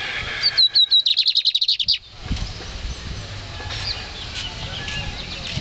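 Caged black-and-white seedfinch (the Guyanese 'moustache') singing: a few high chirps run into a fast, high trill lasting about a second and a half, which stops abruptly, followed by fainter scattered chirps.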